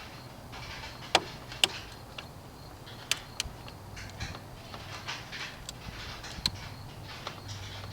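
A handful of sharp, irregular clicks, about five, over a faint steady hiss and low hum.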